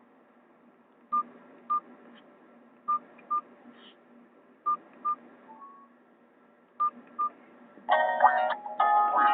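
Nokia 216 mobile phone's speaker playing a beeping ringtone: pairs of short high beeps, a pair about every two seconds. Near the end a louder tune of several notes starts.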